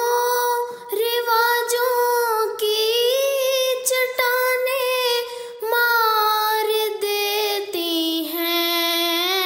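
A female voice singing an Urdu nazm, drawing out long held notes with no clear words that slide from pitch to pitch, with a wavering vibrato near the end.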